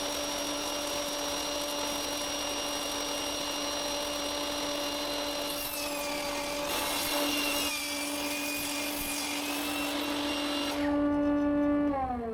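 Table saw running with a steady motor and blade whine, cutting through a spruce board partway through. Near the end it is switched off, and the pitch falls as the blade spins down.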